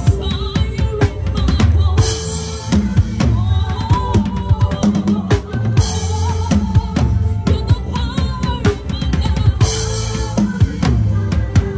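Drum kit played in a steady groove: bass drum, snare and rimshots, with a crash cymbal coming in about every four seconds.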